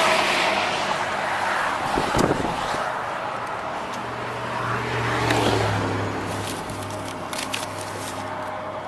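Vehicle and road noise: a loud rush that fades over the first few seconds, a single knock about two seconds in, then a steady low engine hum.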